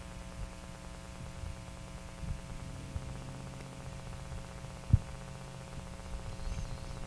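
Hot oil and chicken fat sizzling faintly in a skillet over a steady hum, with a few light knocks of a fork against pan and plate as browned chicken thighs are lifted out. The sharpest knock comes about five seconds in.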